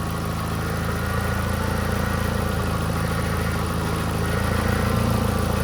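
Volkswagen Gol G4 engine idling with a faint steady drone from the hydraulic power steering, with the wheel left straight; the mechanic traces the drone to the power steering system. A holed exhaust adds to the engine sound, and the level rises slightly about four seconds in.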